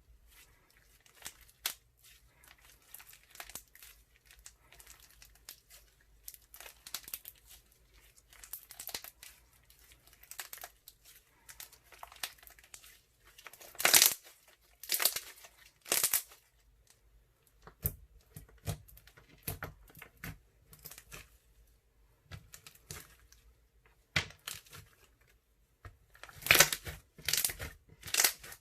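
Crunchy slime made with clear glue being squeezed and kneaded by hand: irregular crackling and popping air-bubble sounds, with a few louder bursts about halfway and again near the end.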